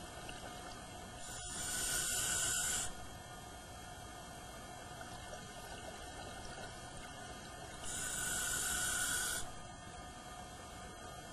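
Scuba diver's regulator hissing with two breaths, about six seconds apart, each lasting a second and a half, over a steady low underwater background.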